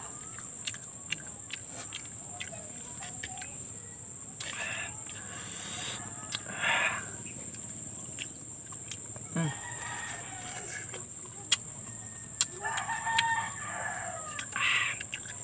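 Rooster crowing several times in the background, each call lasting about a second, with a few sharp clicks in between.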